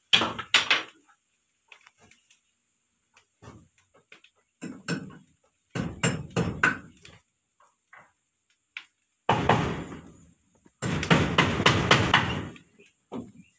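Bursts of hammering and banging on the hut's wooden frame and corrugated zinc roofing, in several irregular clusters of blows with quiet gaps between; the longest and loudest clusters come in the second half.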